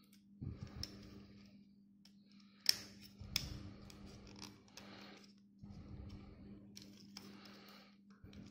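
Plastic clicks and rattling as hands handle a Mach Avante mini 4WD kit car and press its plastic parts together, with a sharp snap near the one-third mark. A steady low hum runs underneath.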